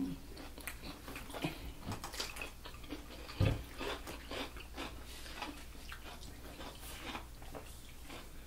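Close-miked chewing and biting of two people eating sausage, rice and cucumber: many short, wet crackles and clicks. A dull thump stands out about three and a half seconds in.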